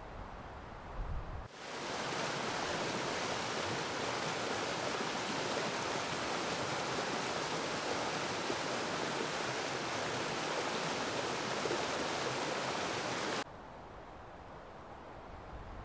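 Stream rushing over bedrock ledges: a steady hiss of water that starts suddenly about a second and a half in and cuts off suddenly near the end, leaving a low rumble.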